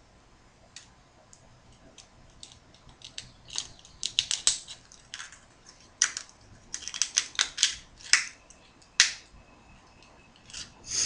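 A metal blade scraping and clicking against a small pearl oyster's shell as it is pried open, in irregular clusters of short clicks and scrapes; the shell is hard to open.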